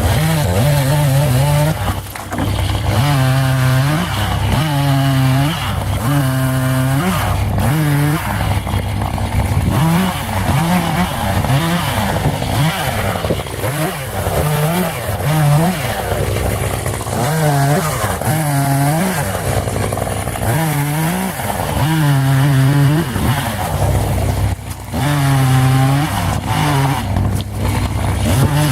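Two-stroke chainsaw revving up and dropping back over and over, about once every second or so, as it cuts through firewood, with a steady low engine hum underneath.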